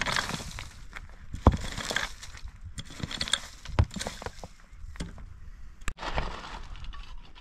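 Rocks knocking and grating against each other as they are handled and set into a dry-stone wall, with a few sharp knocks; after a break about six seconds in, a shovel scraping and crunching into dry, stony soil.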